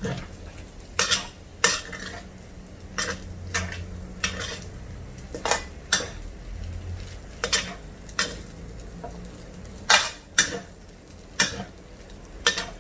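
Egg fried rice with prawns being stir-fried: a metal utensil scraping and clanking against the pan at an irregular pace, about one or two knocks a second, over a steady low hum and light sizzling.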